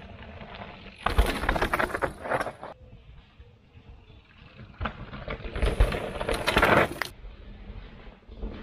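Mountain bike riding down a rocky dirt trail past the microphone: tyres crunching and rattling over packed dirt and loose stones in two loud passes, one about a second in and one about five to seven seconds in.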